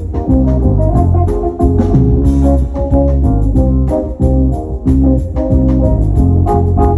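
A live band playing: an organ-voiced keyboard holding chords over heavy bass, with drums keeping a steady cymbal beat.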